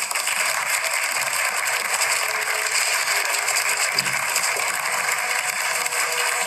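Audience applauding, steady clapping throughout.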